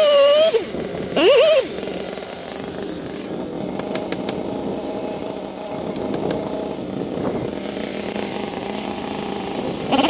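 Stihl chainsaw running steadily at the base of a red oak stem, a steady engine drone without revving. A snatch of music with singing briefly overlaps it in the first second and a half.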